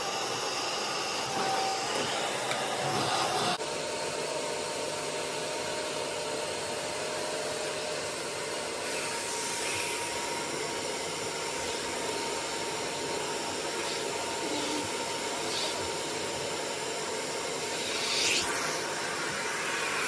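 Dyson ball upright vacuum cleaner running steadily on carpet: a continuous rush of air with a faint steady whine, and brief louder swells near the end as it is pushed about.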